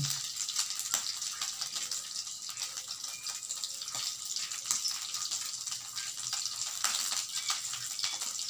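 Beef rendang frying in a little hot oil in a wok: a steady sizzling hiss with scattered crackling pops.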